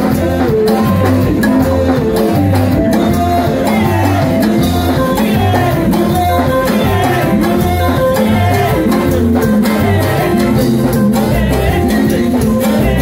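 Live band playing continuous music with a steady beat: electric bass guitar, congas and drum kit, with a melody carried over the top.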